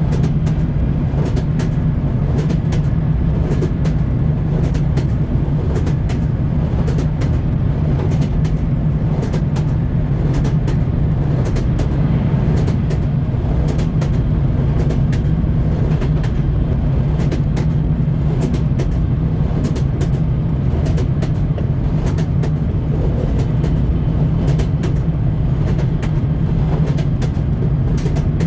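Train wheels clacking over rail joints: a steady low rumble with frequent sharp clicks, several a second.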